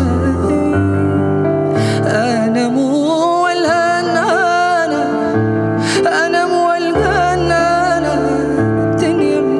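A man singing an Arabic ballad into a microphone, his voice wavering through drawn-out ornamented notes, over grand piano accompaniment with sustained bass notes and chords.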